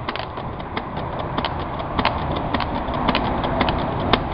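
UTG M3 airsoft pump shotgun being fired in quick succession, a sharp click or crack about every half second, over a steady low rumble of wind on the microphone.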